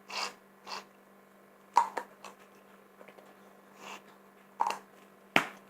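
A spoon stirring a sticky slime mixture of glue, shaving foam and baking soda in a bowl, with soft squelches and a few sharp knocks of the spoon against the bowl.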